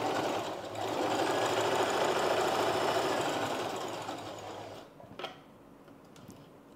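Sewing machine running a seam through the blouse fabric and lining, with a brief dip about a second in, then slowing and stopping a little before five seconds. A single short click follows.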